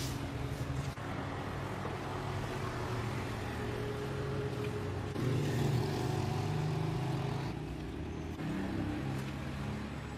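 A motorcycle engine running, getting louder and changing pitch about five seconds in, then easing back.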